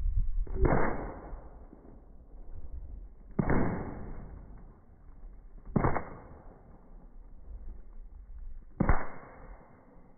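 Four shots from a Marlin 795 .22 Long Rifle, spaced about two and a half to three seconds apart. Each is a sharp crack that trails off briefly.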